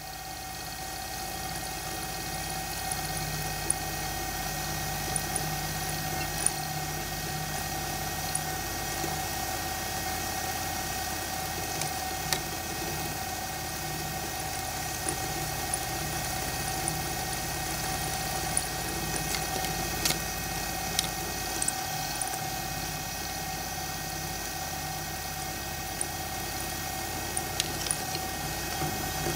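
CTV36 milling and drilling machine running steadily: an even motor and spindle hum with a higher tone over it, rising to full speed in the first couple of seconds. Scattered small clicks, typical of the cutter taking a milling cut, come through it.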